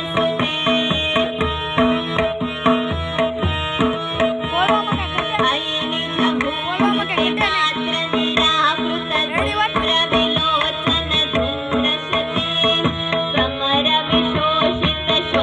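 Live Indian light-classical or devotional music: tabla played in a steady rhythm under a sustained harmonium drone, with a woman singing the melody, amplified over a stage PA.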